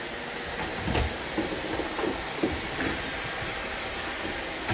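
Robot vacuum cleaners running on a wood floor: a steady whirring noise with a few scattered light clicks in the first few seconds.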